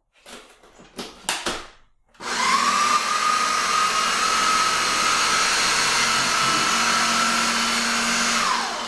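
A few brief knocks, then a Ninja blender's motor spins up and runs steadily for about six seconds, creaming cream cheese, ricotta and sugar with its plastic blade. Its pitch rises as it starts and drops as it winds down near the end.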